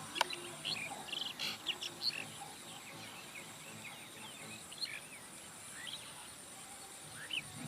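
Wild birds giving many short chirping calls, busiest in the first two seconds and sparser after, over a steady high-pitched pulsing insect trill.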